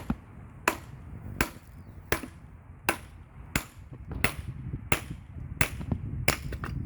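A sledgehammer striking the flat back of an axe head to drive it into a log, metal on metal: about ten even blows, roughly one every 0.7 seconds, each a sharp crack with a short ring.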